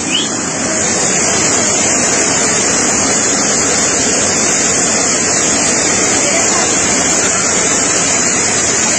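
Flash-flood torrent of muddy water from a swollen ravine, rushing loud and steady.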